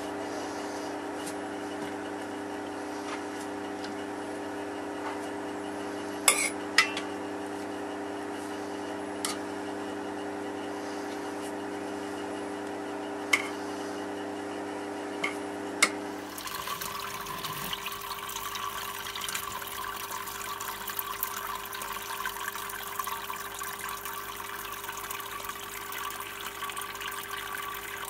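A steady motor hum, most likely the brewing rig's mash pump, with a few sharp metallic clicks as a metal stirring tool knocks against the stainless keg mash tun. About halfway through, this gives way to a continuous trickling, splashing rush of sparge water running onto the grain bed during fly sparging.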